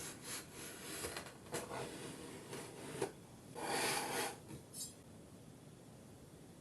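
Kinetic sand being handled and scraped, a series of short rustling scrapes with the longest and loudest about three and a half seconds in, stopping about five seconds in.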